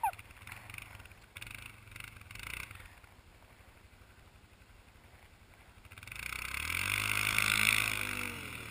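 Small vehicle engine running low and faint, then from about six seconds in, getting louder with its pitch climbing and falling back, over a hiss, before easing off near the end.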